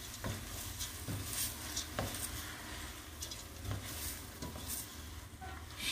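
Raw red lentils being stirred with a spoon into onion and spices sizzling in olive oil in a pot: a soft steady sizzle with irregular light scrapes and knocks of the spoon.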